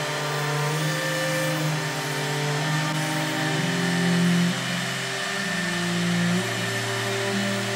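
CNC router spindle running with a steady high whine and hiss, with cello music playing underneath.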